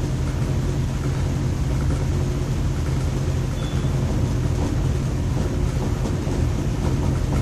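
Room air cooler's fan running: a steady low electric hum with a constant rush of air.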